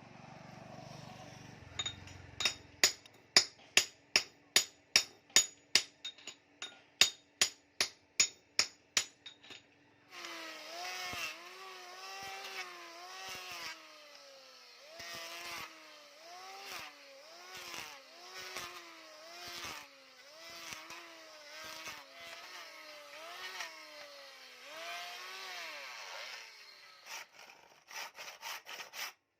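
A hammer striking steel about sixteen times, roughly twice a second, each blow ringing. Then rhythmic back-and-forth strokes of a hand tool on the metal, about one a second, each with a squeal that rises and falls, ending in a few quick clicks.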